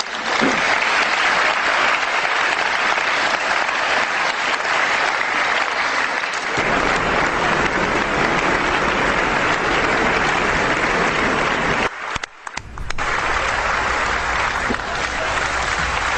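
Audience applauding steadily after a speech, with a brief dip about twelve seconds in.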